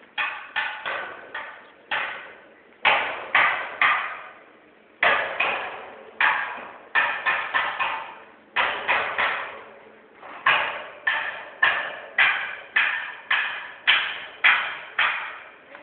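Hammer blows on steel, about two a second in runs with short pauses, each strike ringing briefly, as the steel roof trusses are fixed in place.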